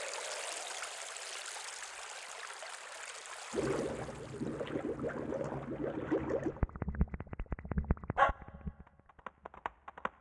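Yamaha PSR-SX900 arranger keyboard playing sound-effect voices from its percussion and SFX bank: a hiss that fades over the first few seconds, then a low rumbling rush, then a fast run of clicks with a short rising tone partway through, the clicks thinning out near the end.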